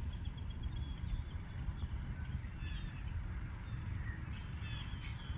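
Faint high chirping calls from an unseen animal: a quick run of chirps in the first second and more short twisting calls near the end, over a steady low rumble.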